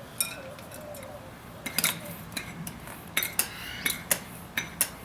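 Bicycle pump being worked to inflate a tire, giving sharp metallic clicks and clinks, often in close pairs, about two a second, starting a little under two seconds in.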